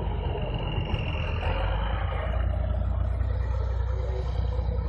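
Six-wheeled trial truck's engine running with a steady low rumble as it drives off across rough ground.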